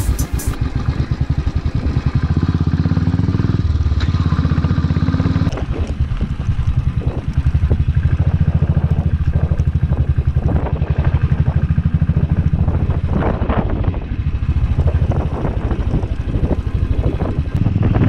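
Motorcycle engine running under way with a steady, rapid low pulse, over a rough gravel track, with frequent knocks and rattles from the bumpy surface.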